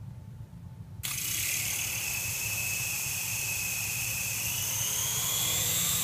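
Syma S107C mini coaxial RC helicopter's small electric motors whining as its rotors spin. The whine starts suddenly about a second in, holds steady, and rises slightly in pitch near the end as the helicopter lifts off.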